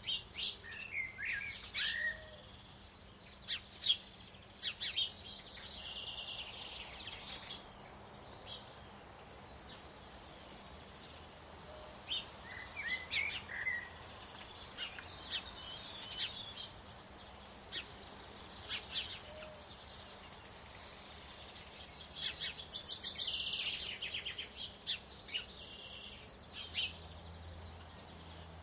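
Songbirds singing and chirping, several calls overlapping: short chirps and quick trills coming and going over a faint steady background hiss.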